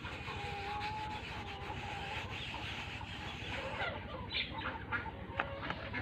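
Hens clucking, with several short calls about two-thirds of the way through, over a wooden rolling pin rubbing across flour-dusted dough on a wooden board.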